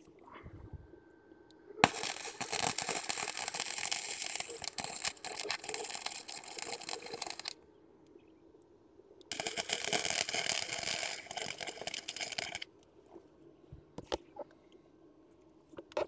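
Wire-feed welder arc crackling and sizzling in two runs, the first about six seconds long and the second about three, with a few light clicks afterwards.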